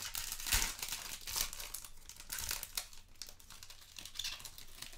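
Foil trading-card pack being torn open by hand, its wrapper crinkling in a dense run of crackles, with the loudest tears about half a second and a second and a half in.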